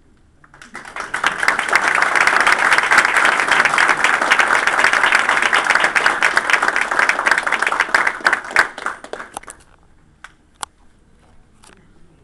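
Audience applauding, starting about a second in and dying away with a few last scattered claps near the end.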